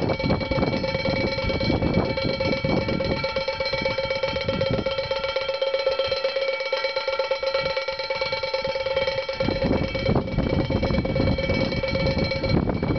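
Wind-driven bird scarer: two wooden clappers spun by the wind strike the bottom of a chamber pot in rapid succession, a steady clatter with a ringing tone from the pot.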